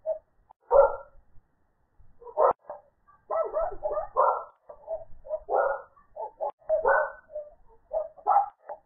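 A dog barking over and over, in quick runs of short barks with brief pauses between them, picked up by an outdoor security camera's microphone.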